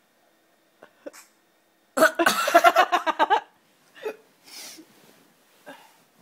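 A baby sneezing about two seconds in: a sharp burst that runs into a rapid pulsing sound lasting over a second, the loudest thing heard. Faint short breaths and sniffs come before and after it.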